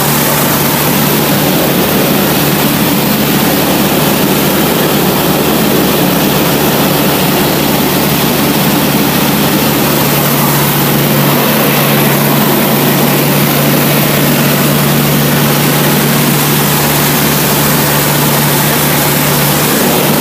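Cessna 152's four-cylinder Lycoming engine and propeller running steadily, heard loud from inside the cockpit as a constant low hum under an even rush.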